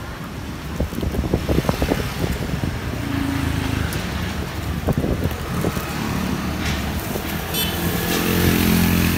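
Street traffic: motorbike engines running past, the hum growing louder near the end. Light clicks and plastic rustling from handling at a street-food cart come in the first couple of seconds.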